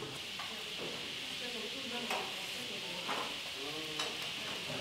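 Commercial kitchen at work: a steady hiss, with a few light clinks of utensils about two, three and four seconds in and faint voices in the background.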